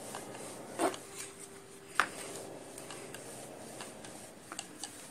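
Wooden rolling pin rolling out dough on a wooden board: soft rubbing with a few light knocks, the sharpest about two seconds in.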